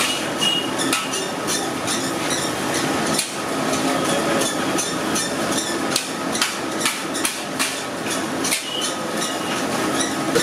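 Metal ladle knocking and scraping against a large iron kadai while mutton pieces are stir-fried, giving repeated sharp clinks at uneven spacing, a few a second, over a steady hiss.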